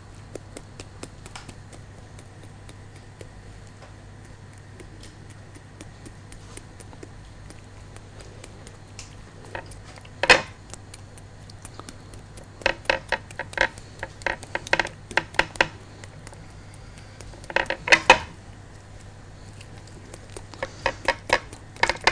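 A metal fork stabbing a raw whole chicken, clicking and tapping on the ceramic plate beneath in runs of quick strikes, with one louder clatter about ten seconds in. Near the end a spoon clinks in a glass mixing bowl, over a steady low hum.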